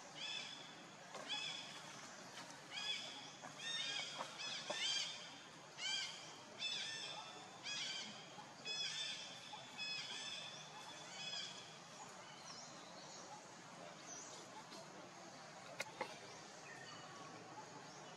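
A run of short, high-pitched animal calls, one or two a second, each rising and falling in pitch. They die down after about eleven seconds to a few fainter calls. A single sharp click comes near the end.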